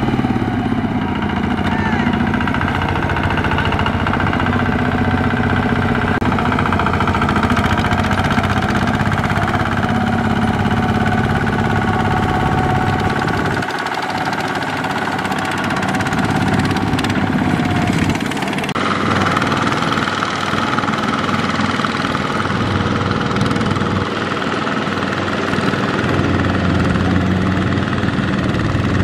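Single-cylinder diesel engine of a Kubota RT120 walk-behind power tiller running hard under load as it drags a trailer of rice sacks through mud. Its tone shifts abruptly about halfway through and again a few seconds later.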